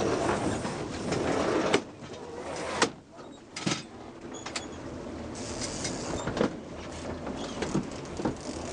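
Fishing boat's engine running under a steady wash of wind and water noise, with several sharp knocks and clunks from gear being handled on deck.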